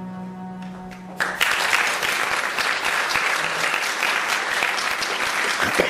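The song's closing chord, a low held note with the cello, sustains briefly; about a second in, a theatre audience breaks into loud applause that carries on.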